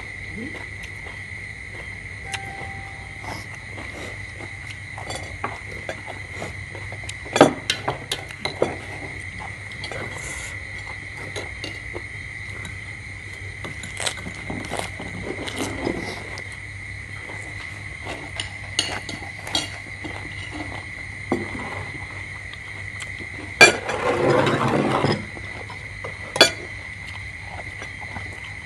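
Spoons, plates and eggshells clinking and tapping now and then as balut eggs are peeled and eaten, with a brief louder rustling scrape near the end. A steady high drone of crickets or insects runs underneath.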